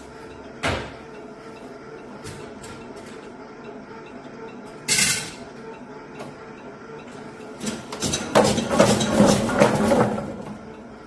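Innostec BTS-900 vegetable cutter dicing radish into cubes: its machine hum runs steadily, with a single knock about a second in and a short hiss around the middle. Near the end comes a run of clattering knocks.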